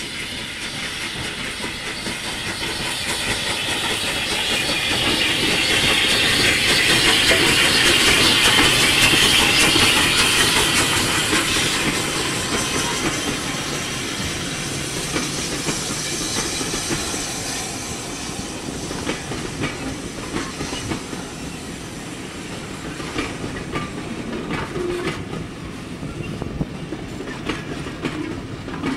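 Steam train passing close by. The locomotive's steam hiss and running build to their loudest about eight to ten seconds in, then the coaches roll past with a rhythmic clickety-clack of wheels over rail joints.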